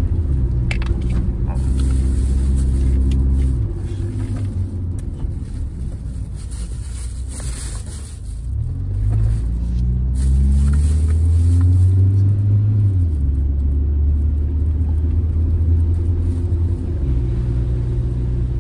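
Car engine and road noise heard from inside the cabin while driving. The engine note steps down a few seconds in, climbs as the engine revs up around the middle, and falls back about two-thirds through.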